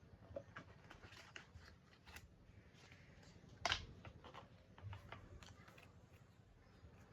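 Faint, scattered handling sounds: light clicks and rustles of a phone and its packaging being handled, with one sharper click about halfway through.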